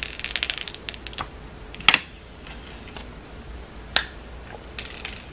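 Clear protective plastic film being peeled off a new phone: a rapid crackling in the first second, then two sharp snaps about two seconds apart.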